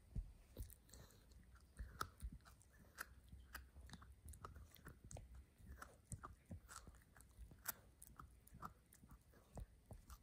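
Chihuahua–pinscher mix puppy gnawing on a stick of dry beef: faint, irregular crunches and clicks of teeth on the hard meat, two or three a second.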